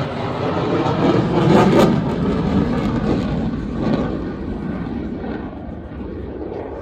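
Jet noise from an F-22 Raptor's twin turbofan engines as it passes, loudest about one to two seconds in and fading away toward the end.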